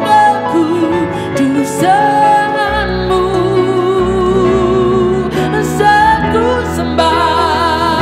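A woman singing an Indonesian worship song with keyboard and guitar accompaniment, holding a long note with vibrato in the middle.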